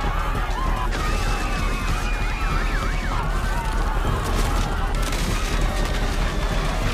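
An alarm siren wailing over a steady low rumble. Its pitch rises and falls in a quick warble from about one to three seconds in, then in slower swoops.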